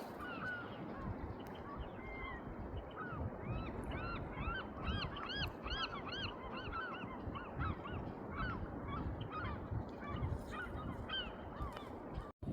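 A flock of birds calling: many short, arched honking calls overlapping one another, thickest in the middle, over a steady low rumble of wind or water noise. The sound cuts out briefly just before the end.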